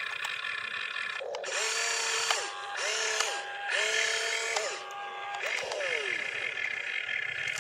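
Small electric motors and gearboxes of an RC excavator whining as it raises and swings its boom. A steady high whine runs under several short whirs in the middle, each rising in pitch, holding briefly and falling away as a motor starts and stops.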